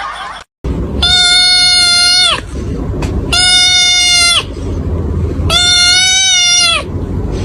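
An animal calling three times: long, high, level cries of about a second and a half each, every one dropping off in pitch at its end. A steady low rumble runs underneath.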